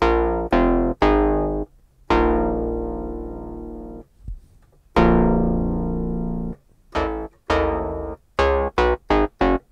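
Roland MC-909 groovebox playing a freshly recorded sample as a patch, triggered note by note from its keys: a few struck notes, two of them ringing out and fading over about two seconds, then a run of short, quick notes near the end.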